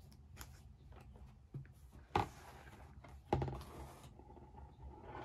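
Desk sounds from journaling: a few light knocks and taps of objects set down or handled, the loudest about two seconds in, and a brief rustle about a second later.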